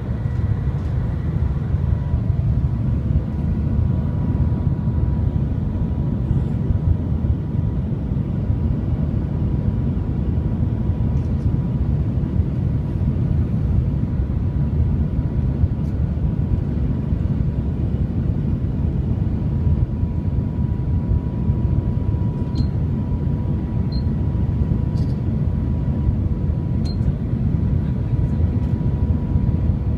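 Cabin noise of the Shanghai Transrapid maglev train running at high speed: a steady, loud, low rumble with a faint steady whine over it.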